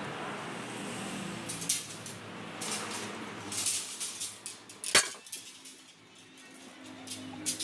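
Light metallic clinks and taps on a stainless steel tube frame as it is handled and worked on, with one sharp, loud metal knock about five seconds in.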